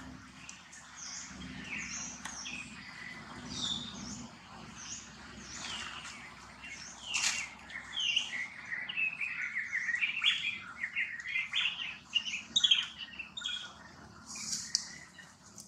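Birds chirping and singing, with a rapid run of loud, high chirps and trills through the middle and latter part.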